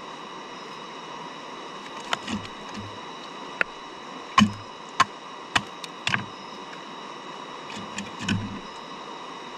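About a dozen sharp, irregular clicks and knocks, some with a dull low thud, over a steady hiss; the loudest comes about four and a half seconds in.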